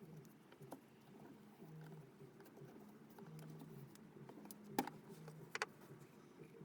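Faint handling sounds: a few light clicks and taps, the loudest about five seconds in, over a low steady background hum.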